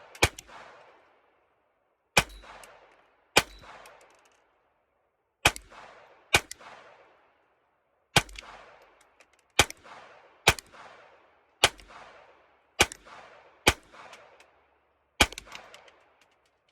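Taurus TX22 .22 LR pistol fired in about a dozen single shots, spaced unevenly about a second or two apart, each followed by a short echoing tail. The pistol cycles each round without a malfunction despite dirty magazines.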